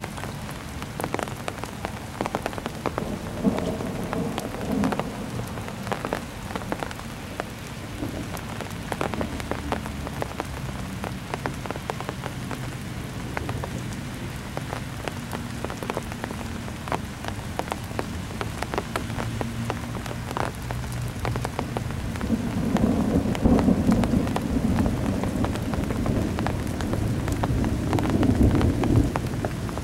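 Summer thunderstorm: steady rain with many sharp drop hits, and a low rumble of thunder that swells about two-thirds of the way through.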